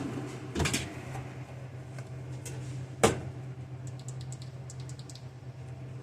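Small knocks and light clicks of hands and tools working a nut into place against metal, with two sharper knocks and a quick run of small clicks near the middle, over a steady low hum.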